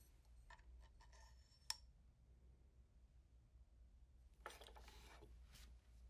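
Faint handling of a metal three-pronged coupling being fitted onto a sewing machine's bottom shaft: a few light clicks with one sharp click a little under two seconds in, then a brief scrape as the coupling slides onto the shaft about four and a half seconds in.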